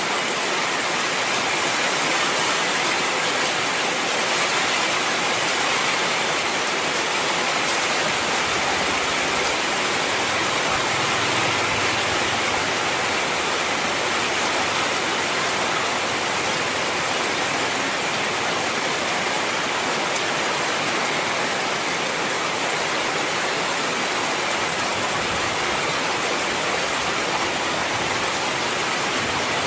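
Heavy rain falling steadily, an even rushing hiss with no single drops standing out.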